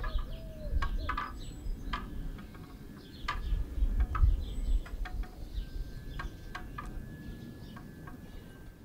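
Outdoor ambience of small birds chirping and calling in short, scattered notes over a low rumble, fading toward the end.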